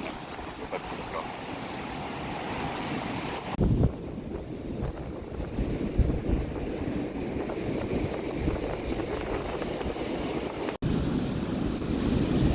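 Ocean surf breaking and washing on the shore, with wind rumbling on the microphone; a loud gust of wind noise hits about three and a half seconds in, and the sound cuts out for an instant near the end.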